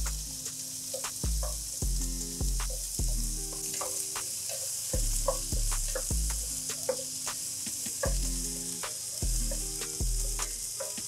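Sliced carrots and onions sizzling in olive oil in a pan, stirred with a wooden spatula, with scattered short scrapes and ticks. Background music with a repeating bass line plays underneath.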